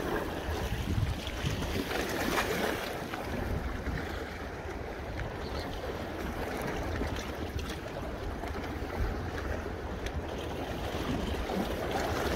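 Wind buffeting the microphone in an uneven low rumble, over small waves washing against the rocks of a breakwater.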